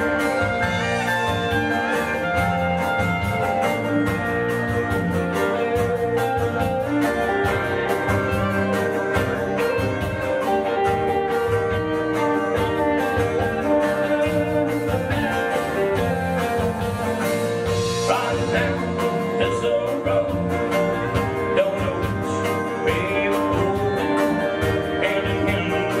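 Country band playing live: drum kit, electric guitar, bass guitar and acoustic guitar together in a steady groove.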